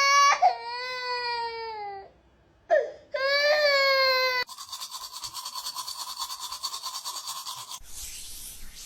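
Two high-pitched wailing cries, the first sliding downward, followed by a fast buzzing rattle for about three seconds and then a short burst of hiss.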